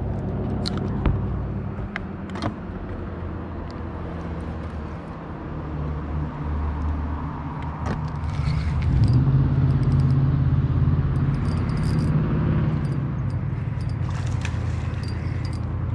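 Spinning reel being cranked while a hooked bass is fought, with scattered light clicks over a steady low rumble. The fish splashes at the surface near the end.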